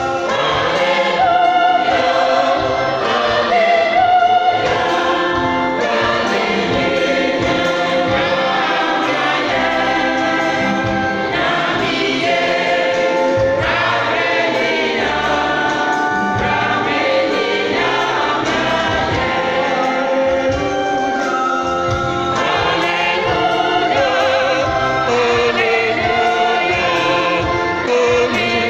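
Church choir singing an Agbadza medley, a Ghanaian gospel song style, with many voices together.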